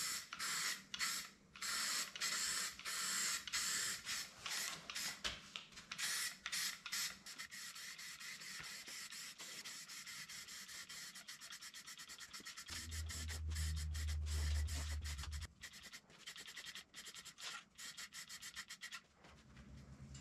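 Aerosol spray can of primer hissing as it is sprayed through a trigger handle: many short bursts at first, then longer, near-continuous passes. A low hum joins for a couple of seconds in the middle.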